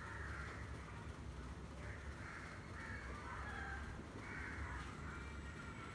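Crows cawing several times, faint, over a steady low hum.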